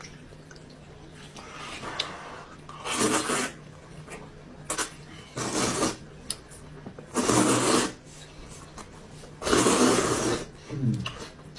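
A man slurping noodles from a bowl: four long, noisy slurps a couple of seconds apart.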